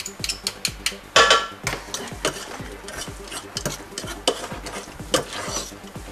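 A utensil stirring and clinking against a stainless steel mixing bowl as chopped greens are mixed, in irregular knocks with a brief ringing clink about a second in.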